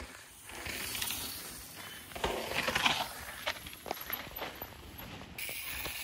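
Downhill mountain bike going past on a dirt trail: tyres scrabbling and sliding over dirt and roots, with scattered knocks and rattles from the bike, loudest about two to three seconds in.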